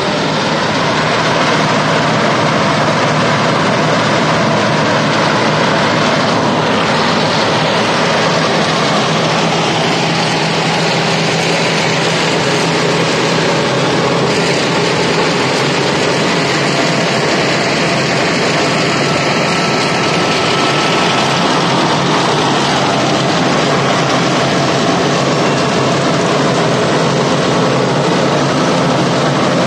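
Diesel engine and machinery of a tracked Vögele Super 1800-1 asphalt paver running steadily at close range while it lays asphalt.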